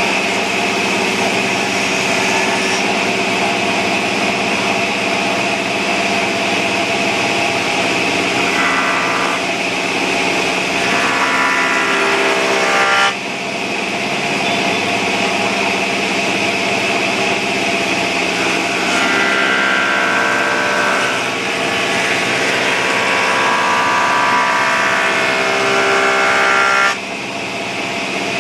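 Electric woodworking machinery running steadily with a whine, its pitch shifting at times. It breaks off abruptly twice and starts again.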